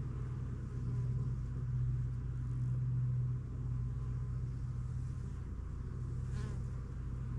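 Honeybees buzzing around the open hive, a steady low hum that swells louder for a couple of seconds as bees fly close.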